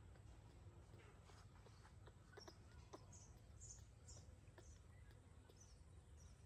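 Near silence: faint outdoor room tone with scattered soft clicks and a few faint, short, high chirps around the middle.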